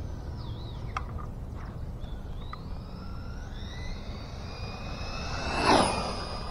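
Team Associated DR10 RC drag car's electric motor and gears whining, rising steadily in pitch as it speeds toward the camera. It passes close by with a loud rush about five and a half seconds in.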